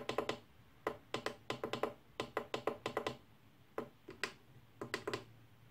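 Push-button clicks on an Anesty 8582D hot-air rework station, pressed in quick runs of several clicks a second, then singly near the end, stepping the hot-air gun's set temperature up.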